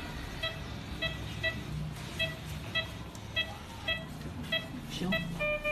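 Electronic beeping from medical equipment: short, high beeps repeating roughly every half second, often in close pairs, over a low hum. Near the end a longer, lower steady tone begins.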